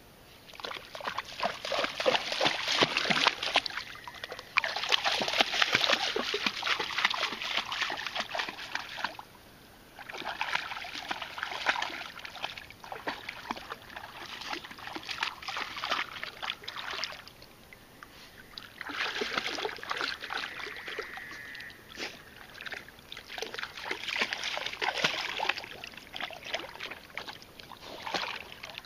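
A Weimaraner lapping and splashing in shallow river water as it drinks and wades, in bouts of a few seconds with short pauses between them.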